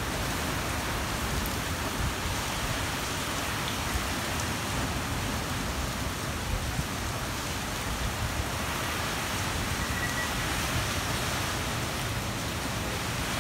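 Typhoon rain and wind, a steady, even hiss with no gusts or breaks.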